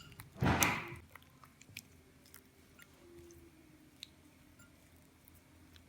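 Freshly made glue slime being picked up and squeezed by hand: one short wet squelch about half a second in, then faint sticky clicks.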